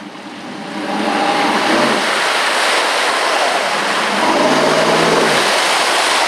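Floodwater rushing and spraying against the side of a vehicle as it drives through deep water, swelling about a second in, with the engine running underneath.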